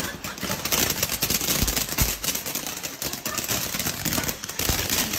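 Fireworks crackling and popping in a rapid, dense string of small bangs, with a couple of heavier thumps about two seconds in.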